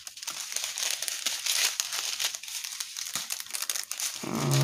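Small clear plastic bags of diamond painting gems crinkling as they are handled, with steady crackling and small ticks. Near the end there is a brief vocal sound rising in pitch.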